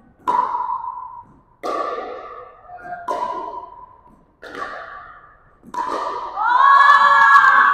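Pickleball rally: paddles striking the hollow plastic ball five times, each a sharp pock about a second and a half apart that rings on in the gym's echo. Near the end a person's voice is raised over the play.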